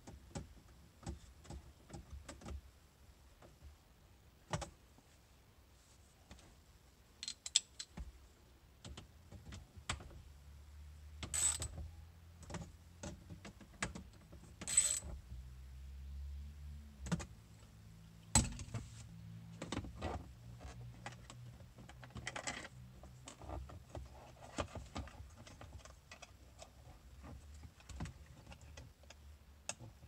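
Hand work on a 2015 Honda Fit's plastic dashboard: a socket ratchet clicking as screws are driven, with scattered clicks and knocks of tools and trim parts being handled, and a few sharper clacks around the middle.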